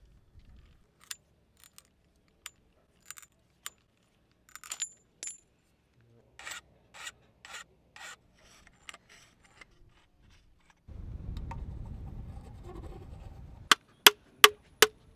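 Tools and metal parts being worked on a mountain bike during the build: scattered light clicks, a run of rasping, rubbing strokes, a low rumble, then five loud, sharp metallic clicks near the end.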